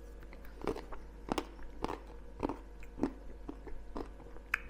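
A person chewing a mouthful of McFlurry ice cream with crunchy bits in it, close to the microphone: a regular run of short crunches, a little under two a second.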